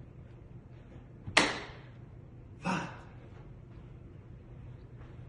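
A single sharp hand clap about a second and a half in, made while doing a sumo squat, with a short tail of room echo.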